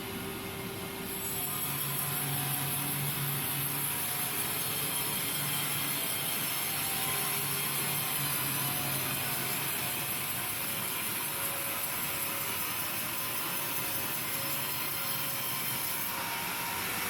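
Sawmill machinery running, with a steady high hiss that starts about a second in and stops near the end, over a low mechanical hum.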